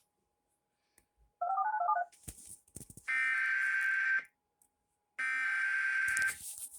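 A quick run of telephone touch-tones (DTMF) about a second and a half in, then two harsh, high, buzzing digital squawks of about a second each, starting about three and about five seconds in. The squawks are the SAME data header that opens an Emergency Alert System severe thunderstorm warning.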